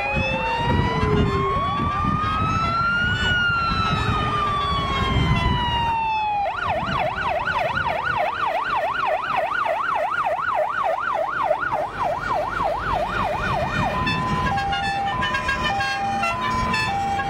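Fire engine sirens from passing fire trucks: first a slow wail that rises and then falls, then a fast yelp from about six seconds in, then a two-tone hi-lo siren from about fourteen seconds in. Truck engines rumble underneath early on.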